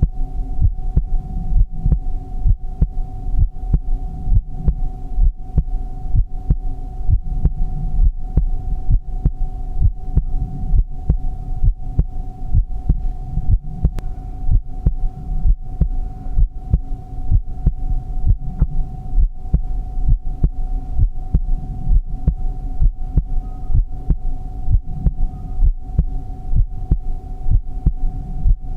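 A heartbeat thumping in a steady, even rhythm over a constant hum.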